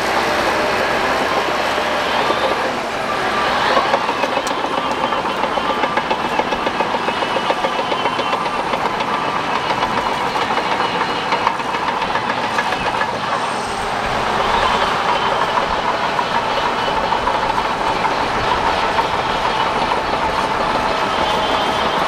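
Crawler bulldozer on the move: its diesel engine runs under a fast, steady clatter of steel track links.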